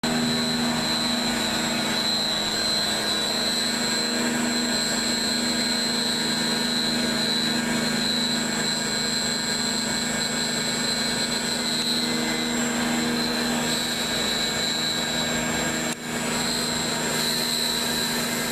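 Spindle of a MotionMaster SB55X five-axis CNC router running with a steady whine over a constant machine noise. The sound dips briefly about 16 seconds in.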